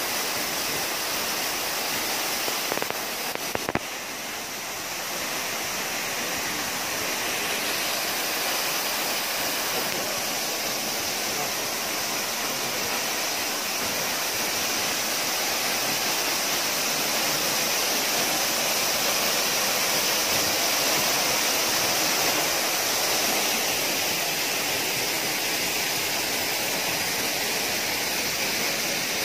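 A roughly 20-metre waterfall pouring into its plunge pool: a steady rush of falling water, with a few brief knocks about three seconds in.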